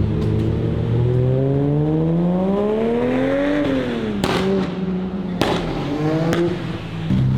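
Car engine accelerating hard, its pitch climbing for about two and a half seconds before dropping off, followed by two sharp cracks and a shorter climb near the end.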